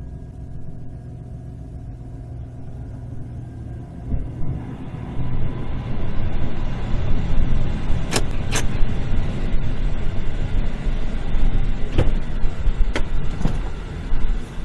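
Pickup truck running, heard from inside the cab, getting louder from about five seconds in, with a few sharp clicks or knocks in the second half.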